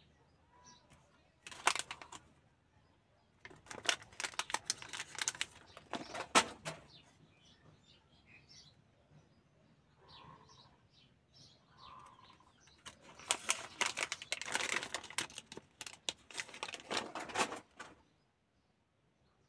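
Stiff foil trading cards being handled and swapped between the hands, in bouts of rustling and sliding card: briefly about two seconds in, again from about four to six seconds, and a longer bout later on. Faint bird chirps sound in the gaps, and everything cuts out near the end.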